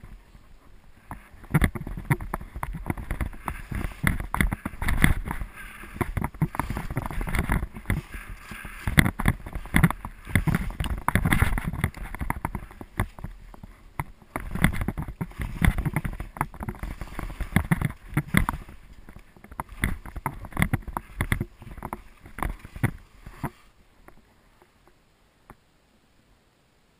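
Skis swishing and hissing through deep powder snow, swelling and fading with each turn, with many sharp clicks and knocks mixed in. It dies down a few seconds before the end as the run slows.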